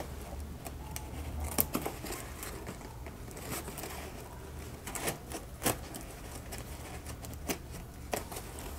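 Scissors cutting at the clear plastic wrap and tape on a cardboard package: a few short, sharp snips spaced irregularly, with faint crinkling of the plastic.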